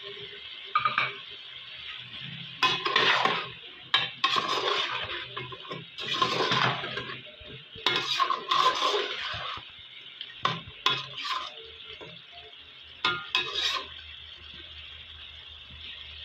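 Metal spoon stirring mutton curry and potato pieces in an aluminium pot, scraping and clinking against the pot in irregular strokes from about three to fourteen seconds in.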